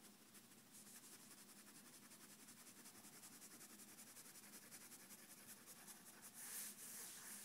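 Faint scratching of a drawing tool on paper in rapid, short repeated strokes, louder near the end.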